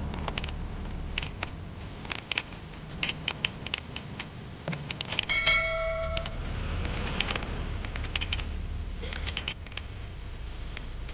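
Hands working on a Mercedes ignition lock: a series of sharp clicks and light metallic taps, with a short ringing chime a little past five seconds in.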